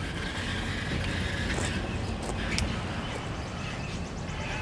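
Ex-Norfolk Southern EMD GP60 diesel locomotive running with a steady low rumble as it moves a cut of covered hoppers at slow switching speed, with a few brief sharp sounds from the train about halfway through.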